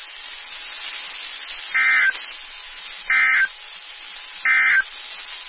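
NOAA Weather Radio EAS/SAME digital data bursts: three short, identical, buzzy warbling bursts about a second and a half apart, over a steady radio hiss. The bursts are the brief end-of-message code sent three times to close the flash flood warning.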